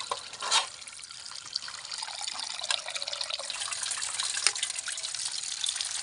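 A stream of running water splashing into a steel bowl of raw chicken pieces as they are rinsed by hand: a steady pouring hiss with a few sharper splashes, one about half a second in and one about four and a half seconds in.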